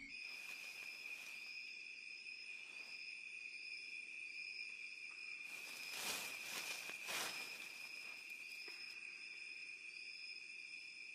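Insects chirping and droning in a natural ambience: one steady high buzz, with a fainter chirp repeating about once a second. Two brief louder sounds stand out about six and seven seconds in.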